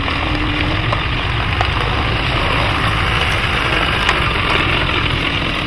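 A 2016 Nissan Navara's 2.3-litre four-cylinder diesel engine running steadily: a constant low rumble with rushing noise over it.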